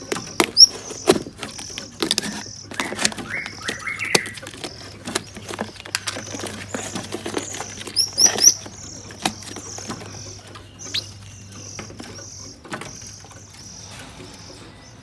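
Nestling songbirds cheeping with short, high, repeated calls, over many light taps and rustles as the chicks are handled. A few sharp rising chirps stand out about half a second in and again around eight seconds. The taps thin out in the second half.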